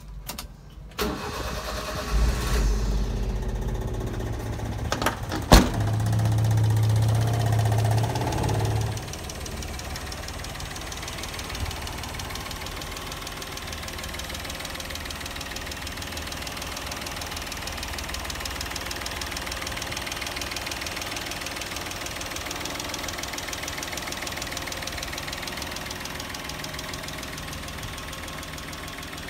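Honda Acty truck's E07A three-cylinder engine cranked with the key and starting. It runs louder for several seconds, with one sharp click partway through, then settles to a steady idle from about nine seconds in.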